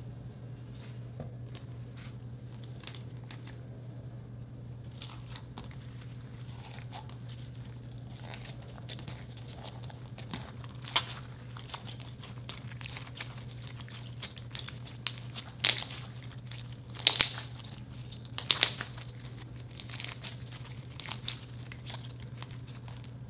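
Hands kneading thick slime with chunky 'chip' pieces mixed in: soft crackling and clicking, with a handful of sharper pops in the second half, over a steady low hum.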